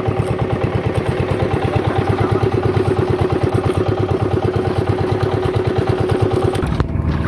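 Small fishing boat engine running at a steady idle, an even rapid chugging with a steady hum over it that stops near the end.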